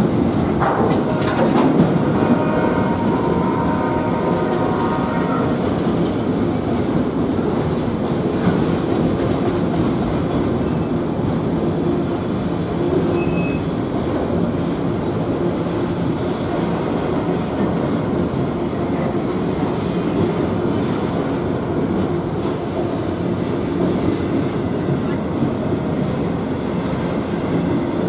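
Autorack freight cars rolling past on steel wheels: a steady rumble and clatter of the train on the rails, with a ringing squeal over the first few seconds.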